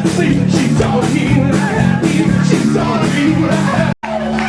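A dance-punk band playing live, loud, with a steady driving drum beat and a shouted vocal. The sound cuts off abruptly about four seconds in and another passage of music starts at once, a splice in the recording.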